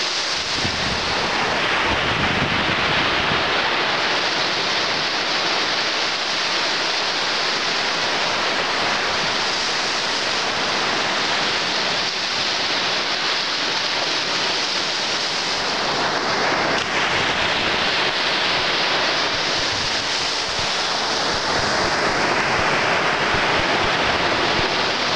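Sea surf breaking and washing up a sandy beach: a continuous rush of waves, with swells of wash over the sand. Wind buffets the microphone with a low rumble in the first few seconds.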